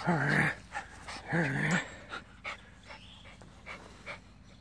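Schipperke growling twice, briefly, while tugging at a toy, then panting in short quick breaths, which the owner takes for exhaustion.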